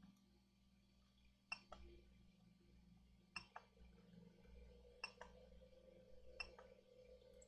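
Faint button clicks in quick pairs, about one pair every second and a half to two seconds, against near silence.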